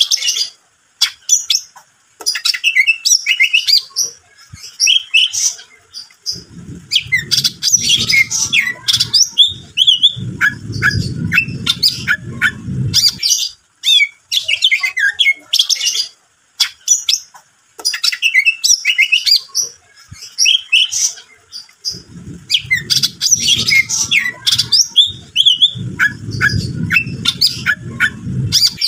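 A caged cucak ijo (green leafbird) in full song: a fast, varied run of loud chirps, whistles and squawky notes broken by short pauses. A low rumble joins twice, about six seconds in and again about twenty-two seconds in.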